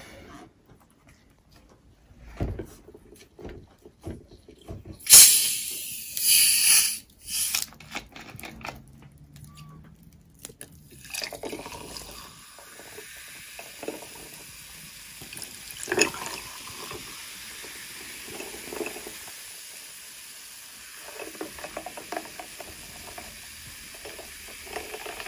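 A plastic bottle of cola lets out a loud hiss of gas about five seconds in as it is opened. From about eleven seconds cola is poured over ice into glasses, fizzing steadily, with a few small knocks of glass and bottle.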